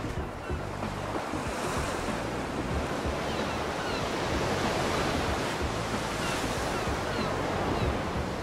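Ocean surf washing steadily onto a sandy beach, an even rush of breaking waves.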